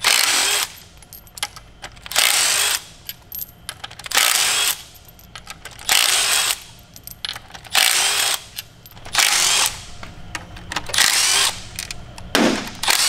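Cordless impact driver backing out triple-square bolts from the rear of an Audi 4.2 V8 engine block. It runs in short bursts of about half a second, one roughly every two seconds, with small clicks of the bit and bolts between bursts.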